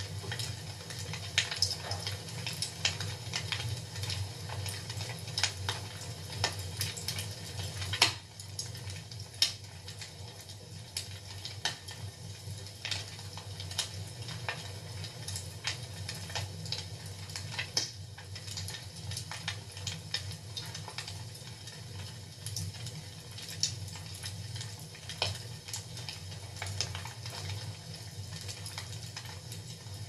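Fire crackling in a fireplace: irregular pops and snaps over a steady low background, with one sharper pop about eight seconds in.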